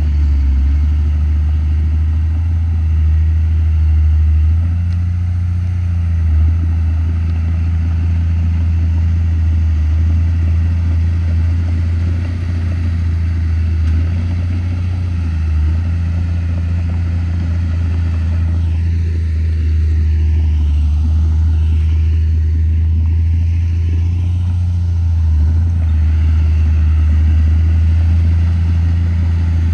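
Komatsu D31P crawler bulldozer's diesel engine working steadily, a low drone whose pitch shifts slightly every few seconds as the load changes.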